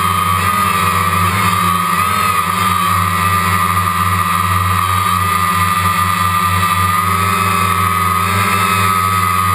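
DJI Phantom quadcopter's four motors and propellers running steadily in flight, picked up through a GoPro's waterproof case. It sounds like a steady high whine over a low hum, wavering slightly in pitch.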